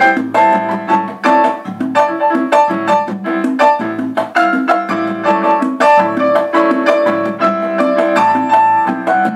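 Instrumental music: a piano or keyboard plays a rhythmic line over bass and light percussion, an Afro-Peruvian festejo rhythm.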